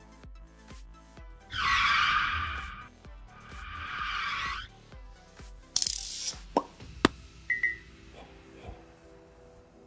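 Background music with edited-in stop-motion sound effects: two long whooshes in the first half, then a short high hiss, two sharp clicks and a brief high blip.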